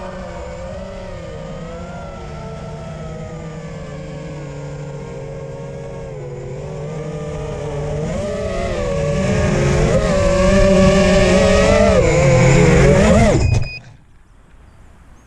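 Eachine Wizard X220 FPV quadcopter's brushless motors whining, their pitch wavering up and down with the throttle. The sound grows louder through the second half and cuts off abruptly near the end.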